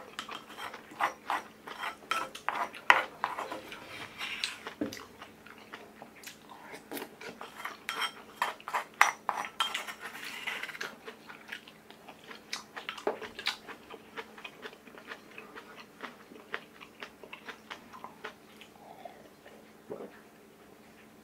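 Chopsticks and a spoon clicking and scraping against a dark stoneware bowl while eating, with many quick clicks over the first ten seconds and sparser ones after.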